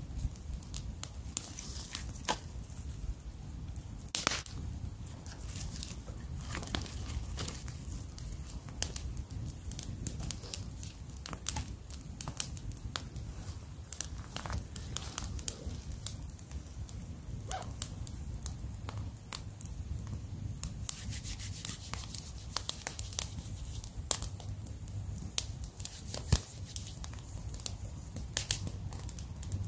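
Small wood campfire crackling and popping, with sharp clicks and knocks of sticks being laid on and moved around, over a steady low rumble.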